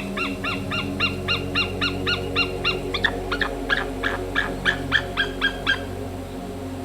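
A bird's rapid call series: short, high, sharp notes at about four a second that turn more clipped about halfway through and stop near the end, over a steady low musical drone.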